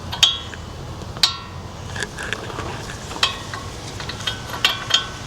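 Metal tools clinking: star sockets and other steel hand tools knocked together as they are handled, several sharp ringing clinks at uneven intervals.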